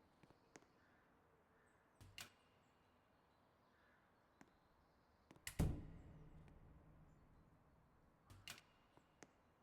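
Near silence broken by scattered small clicks and a few sharp knocks, the loudest a single thump about halfway through that rings on low for a couple of seconds.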